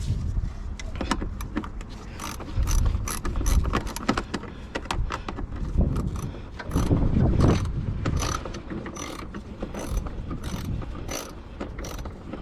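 Socket ratchet wrench on an extension clicking in quick, uneven runs as a fastener is loosened, with some dull knocks of the tool and hands against the van's panels in between.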